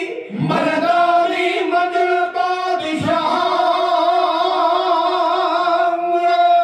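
A kavishri group singing in chorus. About halfway through they settle on one long held note, which breaks off suddenly at the end.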